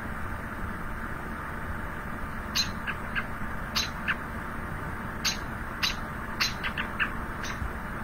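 American robin alarm call: about a dozen short, high 'yeep' or 'peep' notes, starting a couple of seconds in and coming at irregular intervals, with a quick run of several near the end. This is the call robins use to warn other robins of predators; the speed and number of peeps vary with the threat.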